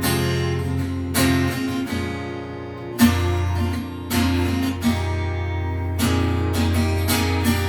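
Acoustic guitar strumming sustained chords in an instrumental passage of a song, with a new chord struck every one to two seconds.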